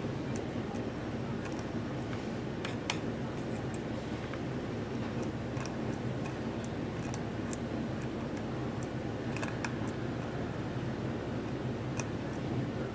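Light scattered ticks and clicks of a metal-nibbed quill pen touching the glass panel and the rim of the enamel jar, about a dozen spread irregularly, over a steady low background hum.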